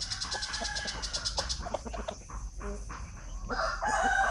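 Chickens clucking and calling, with a louder drawn-out call near the end. A rapid high-pitched pulsing trill sounds over the first second and a half.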